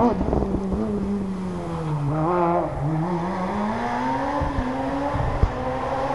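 Rally car's engine on a downhill tarmac stage: its note drops as the car slows for a bend, then rises steadily as it accelerates away. There is a single sharp crack about five seconds in.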